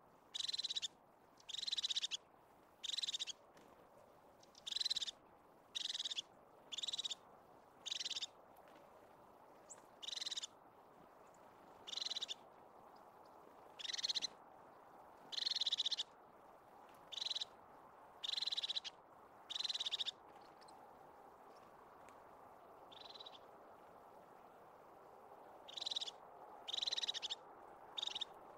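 Crested tit giving a string of short, high, purring trills, roughly one a second, with a pause of a few seconds late on.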